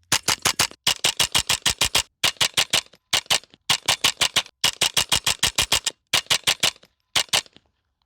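Rapid runs of sharp clicks or cracks, evenly spaced at about ten a second, in bursts of four to ten with short pauses between.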